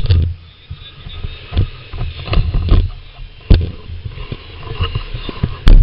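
Irregular low rumbling thumps and a few sharp knocks, with a steady low rumble underneath, from wind and handling on a camcorder microphone inside a slowly moving car. The loudest thumps come about halfway through and near the end.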